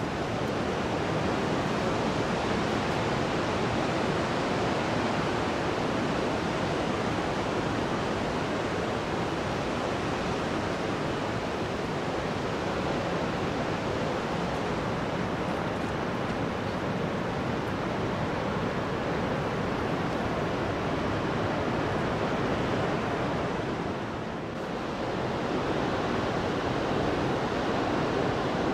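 Sea surf breaking and washing up a sandy beach: a steady, even rush of wave noise, briefly softer about 24 seconds in.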